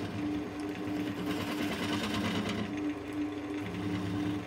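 Wood lathe running with a turning tool cutting the inside of a small cherry bowl: a steady motor hum with a regular pulse, under the rough scraping of the tool on the wood.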